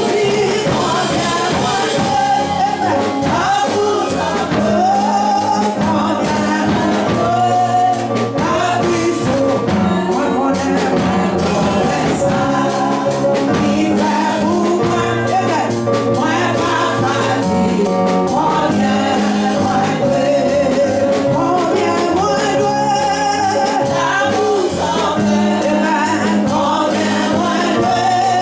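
Gospel singing with instrumental accompaniment: voices singing over sustained bass notes and a steady beat.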